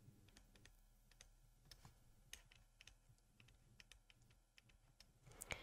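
Near silence with faint, irregular clicks scattered through it.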